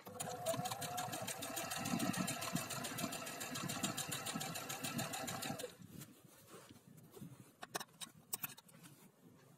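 Electric sewing machine stitching steadily, with rapid needle strokes over a motor whine, as it sews a line through a stretched elastic waistband. It stops about six seconds in, and a few light clicks follow.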